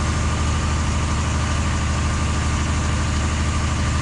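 A large vehicle's engine idling steadily, a low even throb, under a continuous hiss.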